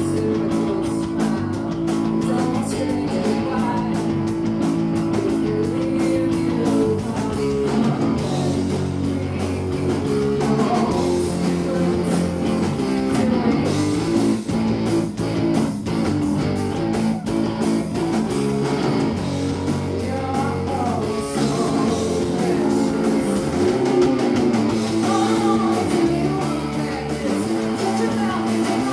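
Rock band playing live: electric guitar, bass guitar and drums, with a woman singing in parts.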